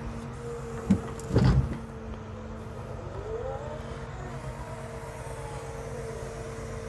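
Log truck's hydraulic crane unloading logs, the engine and hydraulic pump humming steadily. A sharp knock and then a clatter of logs about a second in as the grapple takes a bundle, and a whine that rises in pitch about three seconds in as the boom moves.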